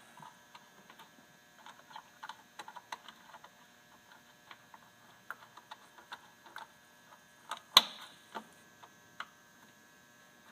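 Irregular light clicks and ticks of a Phillips screwdriver backing out a bolt on a metal mounting bracket. One sharp metallic clink rings briefly just under eight seconds in.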